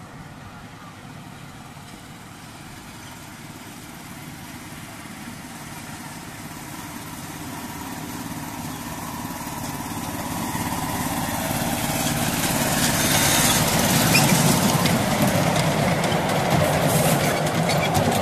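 A miniature 7¼-inch gauge diesel-outline locomotive and its passenger cars approach and pass close by on ground-level track. Their running sound grows steadily louder. Near the end the wheels click over the rails as the cars go by.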